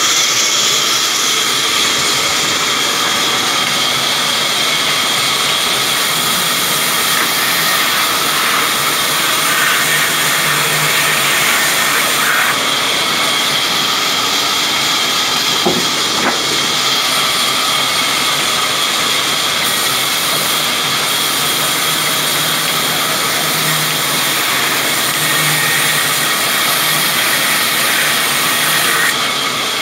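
Sawmill band saw running steadily: a constant loud mechanical hiss with a steady high whine from the blade and drive.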